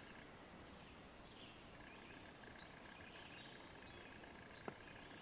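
Near silence: faint outdoor ambience with a few faint, high bird chirps and a faint steady high tone. There is a single soft click shortly before the end.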